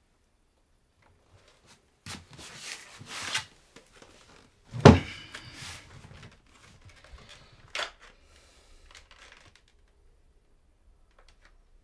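A person sitting down on a small metal-framed chair and handling a VHS cassette: rustling of clothes, one loud thump about five seconds in as the chair takes the weight, then soft rustles and a sharp click from the cassette case.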